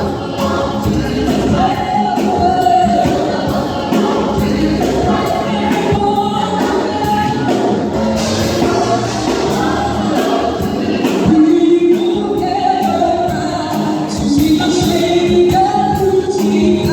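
Gospel choir singing with instrumental accompaniment over a steady beat.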